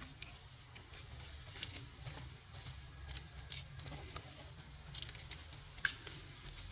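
Outdoor field ambience: a steady low rumble with a faint high hiss, and scattered short sharp clicks. The loudest click comes near the end.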